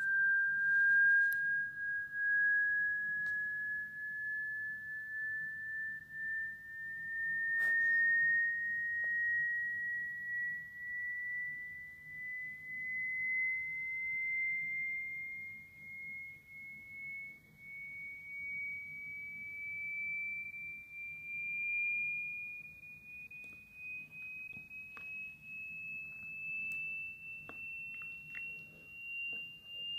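Pure sine test tone of a hearing test, one steady tone rising slowly and evenly in pitch, with a few faint clicks.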